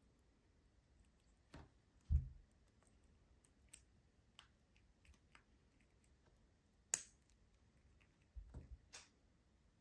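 Faint scattered clicks of a watch's metal folding clasp being worked open and snapped shut by hand, the sharpest click about seven seconds in, with two dull thumps about two seconds in and near the end from the watch being handled.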